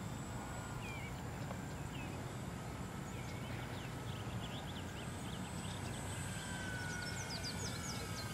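Faint hum of the Dynam B-26's twin electric motors and propellers at low throttle on landing approach, its pitch sinking slowly in the second half, with birds chirping in short repeated calls.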